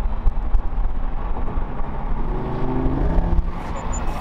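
Three front-engine supercars, a Dodge Viper, a Corvette C7 Z06 and a Mercedes-AMG GT R, running side by side at full throttle, a heavy low rumble with the engine note climbing from about two seconds in.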